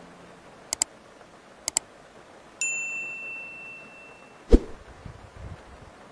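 Subscribe-button animation sound effects: two quick double clicks, then a bright notification-bell ding that rings out and fades over a second or so, and a sharp low thump about four and a half seconds in.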